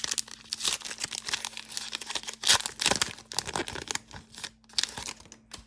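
Wrapper of an Upper Deck hockey card pack crinkling and tearing as it is handled and opened, in quick irregular crackles.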